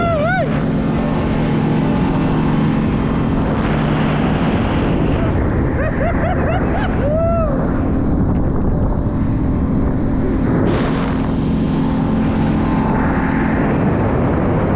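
Motorboat engine running steadily under way, with wind and rushing water noise. Two short rising-and-falling high calls cut through, one at the very start and one about seven seconds in.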